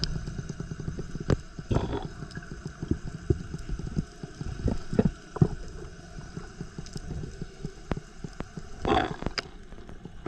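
Underwater water noise picked up by the diver's camera: a low rumble with many scattered clicks and pops, and two louder rushing bursts, about two seconds in and again near the end.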